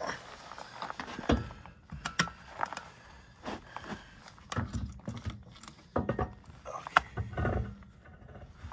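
Irregular knocks, clinks and clanks of metal parts and tools being handled during drive chain work on a skid steer, with a few sharper strikes among them.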